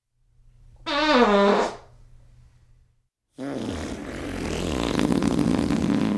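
Fart sound effects: a short, loud one about a second in whose pitch falls, then after a brief gap a long fluttering one that starts about three and a half seconds in and grows louder.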